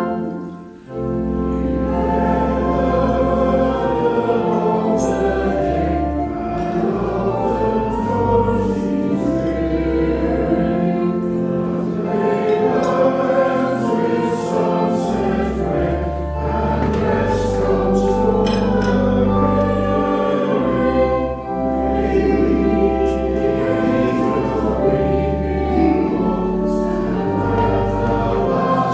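Church congregation singing a hymn with pipe organ accompaniment, after a brief pause about a second in.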